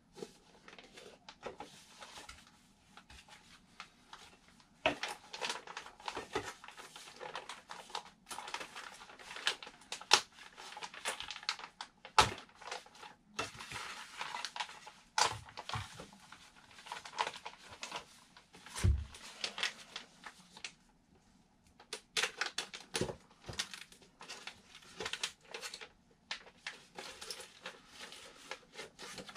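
Thin clear plastic packaging bags crinkling and crackling as they are handled and unwrapped from model-glider wing panels, in irregular rustles with sharp clicks now and then. A dull knock comes about two-thirds of the way through.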